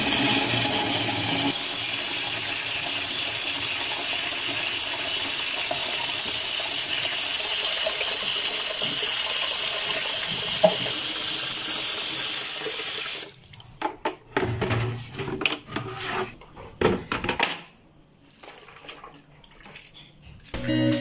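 Water running from a wall tap into a plastic spin-mop bucket, filling it, steady for about thirteen seconds. Then the water stops and there are scattered knocks and clatter from the mop and bucket being handled.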